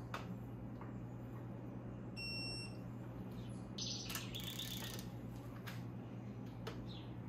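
Digital torque wrench beeping once, briefly, as it reaches its set torque on a cylinder head stud, about two seconds in. A louder burst of wrench clicking and rattling follows about four seconds in, over a steady low hum.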